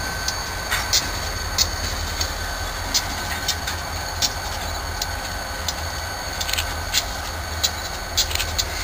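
Locomotive consist with a slug moving slowly through a rail yard: a steady low rumble with irregular sharp clicks.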